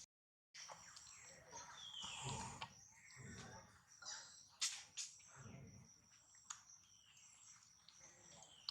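Faint outdoor ambience: a steady high-pitched insect trill, with scattered clicks and rustles and a short falling chirp about two seconds in.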